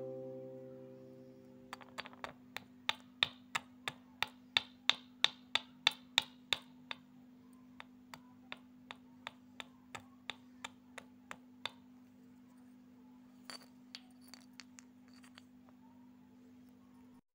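Cardamom pods being pounded in a miniature clay mortar with a small pestle: a steady run of sharp taps, about three a second, that slows and stops after about ten seconds, followed by a few lighter knocks.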